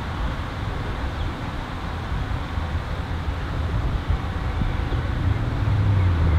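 Outdoor ambience: a steady low rumble of road traffic mixed with wind buffeting the microphone, with a low engine-like hum growing louder near the end.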